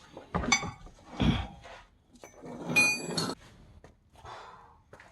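Metal tools being handled: a few knocks and clunks, then one ringing metallic clang about three seconds in, followed by softer scraping.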